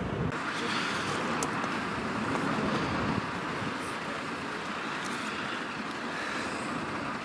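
Steady motorway traffic noise, a continuous rushing hum of vehicles that swells over the first three seconds and then eases slightly.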